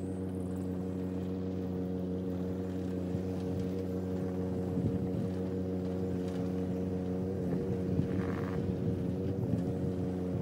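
John Deere 17D mini excavator's diesel engine running at a steady speed as the machine tracks along a dirt trail.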